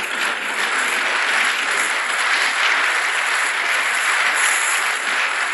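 Lecture audience applauding steadily.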